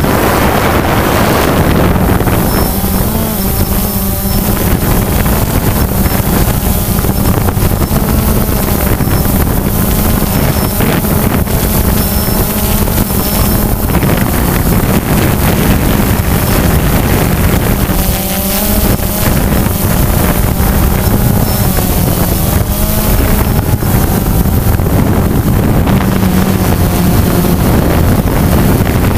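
DJI Phantom quadcopter's four electric motors and propellers buzzing steadily in flight, heard close up from the GoPro mounted under the drone, the pitch wavering up and down as the motors adjust.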